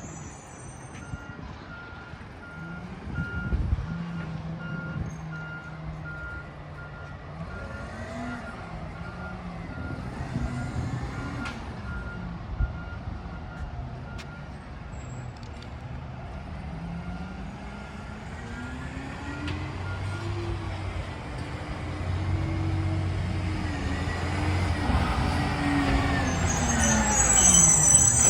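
Diesel engine of a recycling truck rising and falling in revs, with its reverse alarm beeping at an even pace for the first two-thirds. The engine grows louder toward the end, and a sharp hiss of air, like an air brake, comes near the end.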